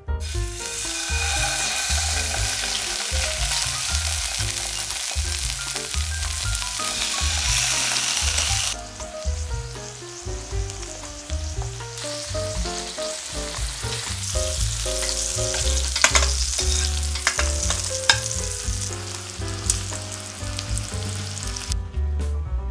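Pork loin steaks sizzling loudly in hot olive oil in a frying pan as they go in; the sizzle settles to a lower level about nine seconds in, with a couple of sharp ticks later on, over soft piano music.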